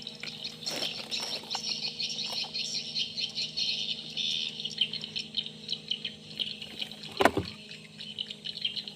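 Dense, continuous chirping of birds and insects in riverside vegetation over a steady low hum, with one brief louder sound that falls in pitch about seven seconds in.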